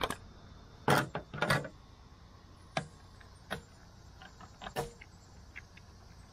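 Sharp plastic clicks and knocks as a black plastic roof-channel molding strip is handled and pressed along the car roof's channel. The loudest two come close together about a second in, followed by a few single clicks.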